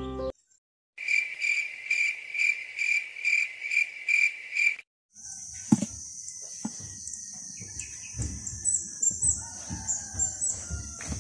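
An insect calling in loud, even pulses about three times a second, then after a short break a continuous high-pitched insect drone. Under the drone come scattered knocks and rustling as rubber boots are pulled on.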